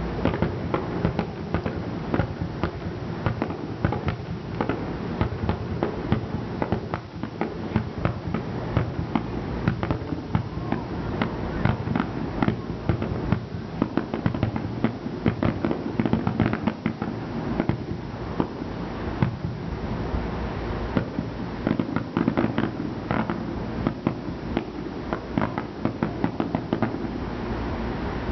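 Aerial firework shells bursting one after another: a dense, unbroken run of bangs and crackles, several a second, over a low rumble.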